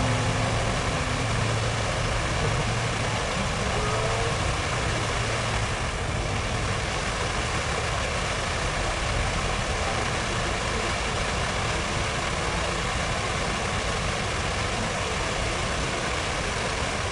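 Steady city-square ambience: the even rush of fountain water over a low traffic rumble, with an engine hum in the first few seconds.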